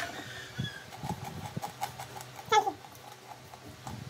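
Close-up eating sounds from a hand-eaten meal of fried tilapia and rice: a sharp click at the start, then small smacking and chewing clicks a few times a second. About two and a half seconds in comes a short, loud squeal that falls steeply in pitch.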